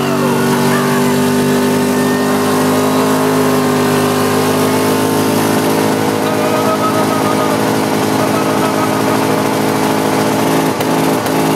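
Yamaha Rhino 660 side-by-side's single-cylinder engine running steadily under way, its drone holding a nearly even pitch.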